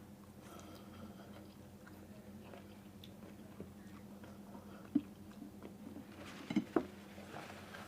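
Eating noodles: quiet chewing with small ticks, and a few sharp clicks of a utensil against the bowl about five seconds in and twice near the end, over a faint steady low hum.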